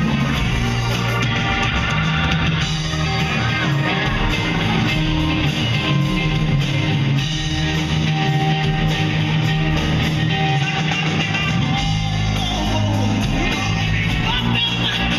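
Live rock band playing: electric guitar, bass and a Gretsch drum kit, with a woman singing lead.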